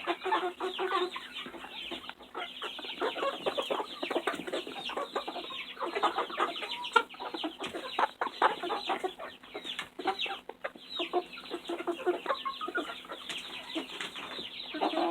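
A flock of young chickens clucking and chattering, with many short calls overlapping.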